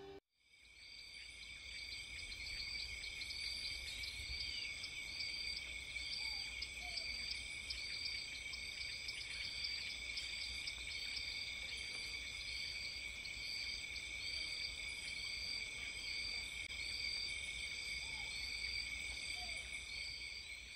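Insect chorus: several steady shrill high buzzes with a chirp repeating a little more than once a second, over a low rumble. It fades in at the start and fades out near the end.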